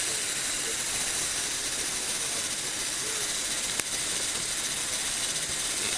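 Small electric motor driving a Lego Technic gear and pulley mechanism, a steady high whirring with one sharp click about four seconds in.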